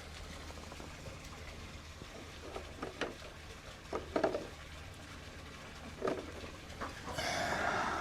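Soft scattered knocks and rustles of hands working through a chicken coop's nest boxes over a low steady hum, with a brief hen sound about four seconds in and louder rustling near the end.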